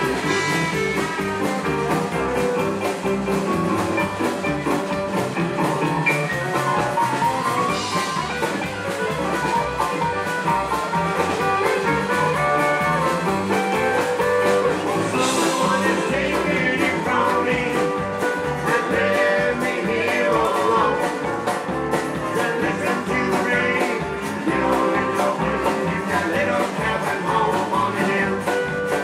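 Rockabilly band playing live: electric guitar, upright double bass and drum kit, steady and unbroken.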